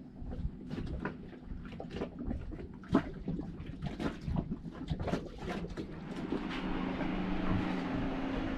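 Irregular small clicks and knocks, like objects being handled and set down, with a steady low hum that comes in about six seconds in.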